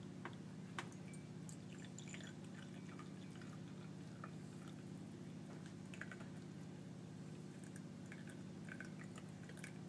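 Freshly brewed espresso poured from a stovetop moka pot into a mug: a faint trickle with scattered drips, over a steady low hum.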